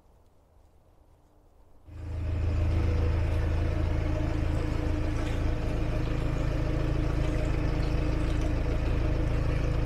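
About two seconds of near silence, then an engine is heard abruptly and runs steadily: a strong low hum with several steady tones above it.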